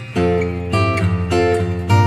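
Background music: acoustic guitar strumming chords, changing about every half second.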